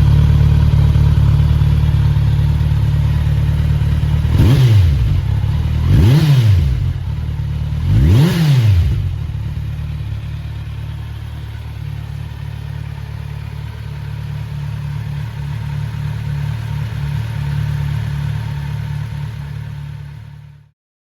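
Kawasaki Z900 SE's inline-four engine with an Akrapovič silencer idling, then revved in three short throttle blips, each climbing and falling back to idle. It idles steadily again until the sound cuts off just before the end.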